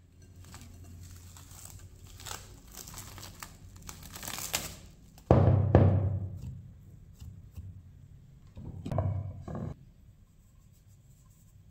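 Plastic cling film crinkling as it is peeled off a glass bowl of risen yeast dough, growing louder, then a loud dull thump about five seconds in as the dough is pressed down in the bowl, and a couple of softer thumps near nine seconds.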